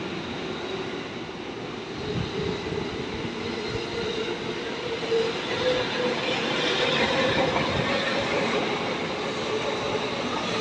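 JR East E231-1000 series electric commuter train pulling out of a station. A motor whine climbs gently in pitch as it gathers speed, over the steady rumble of wheels on the rails.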